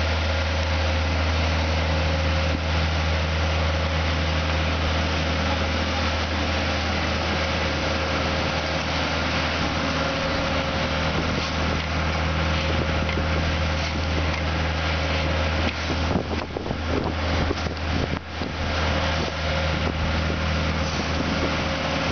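A small tandem-drum asphalt roller's engine running steadily with a deep, even drone. About three-quarters of the way through, a stretch of irregular scraping and knocks comes over the drone.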